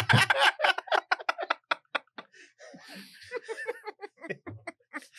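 People laughing in quick, breathy pulses, loudest at the start and dying down to sparser, quieter chuckles.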